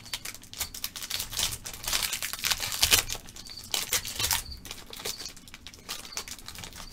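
Foil wrapper of a trading-card pack crinkling and tearing as it is opened, with irregular crackles that are loudest a few seconds in.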